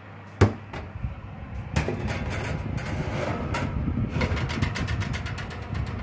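Metal roasting tray and wire oven rack being handled: a sharp clank about half a second in, then scraping and rumbling with a quick run of rattling clicks as the tray is slid along the rack.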